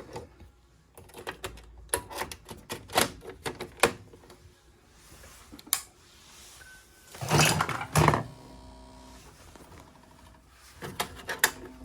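Scattered sharp clicks and knocks of hands working on plastic boiler controls, with a louder scuffing rattle about seven seconds in. A faint steady hum with a few even tones sets in just after.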